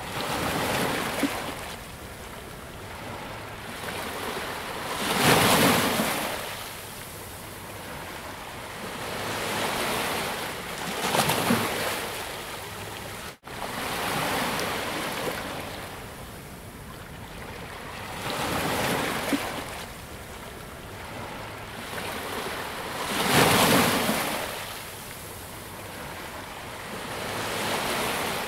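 Ocean surf: waves breaking and washing up the shore, each one swelling and fading over a few seconds, the biggest about six seconds apart. The sound cuts out for an instant about halfway through.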